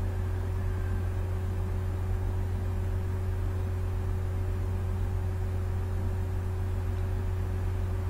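A steady low hum with a faint higher tone and background hiss, unchanging throughout.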